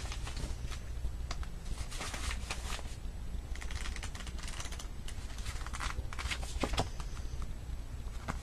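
Pages of a paperback book riffled and flicked by hand: bursts of paper rustling mixed with light clicks and taps of fingers against the pages and cover.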